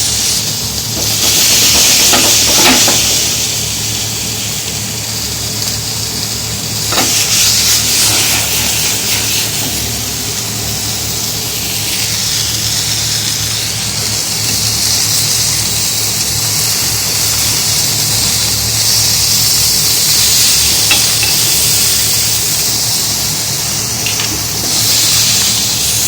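Chicken pieces sizzling in a smoking-hot pan: a steady, loud frying hiss that swells about two seconds in, again about seven seconds in, and near the end. There are a couple of brief knocks early on.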